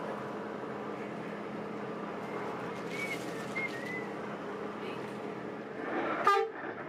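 Cabin noise of a Mercedes-Benz 1526 coach driving: the engine runs steadily under road noise with a low, even hum. Near the end comes a short, loud blast with several pitches at once.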